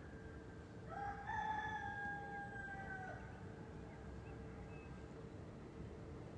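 A rooster crowing once in the distance: a single drawn-out call starting about a second in, rising at the start and then held for about two seconds, over a faint steady background drone.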